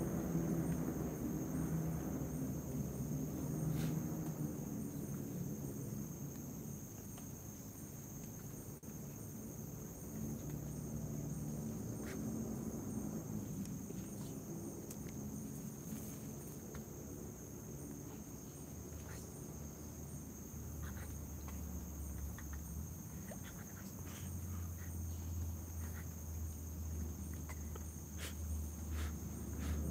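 Night insects chirping steadily in a continuous high-pitched drone, with a low rumble underneath and a few faint rustles and clicks of movement in dry leaves.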